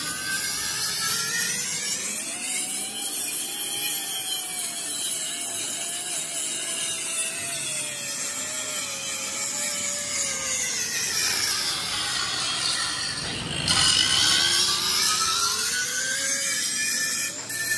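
Handheld angle grinder grinding a steel truck wheel rim, its whine rising and falling in pitch as the disc bears into the metal. It gets louder about two-thirds of the way through.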